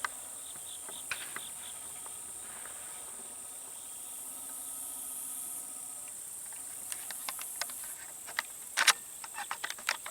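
Field insects, crickets among them, keep up a steady high-pitched drone with pulsing chirps at the start. A run of sharp clicks and knocks comes near the end, loudest about nine seconds in.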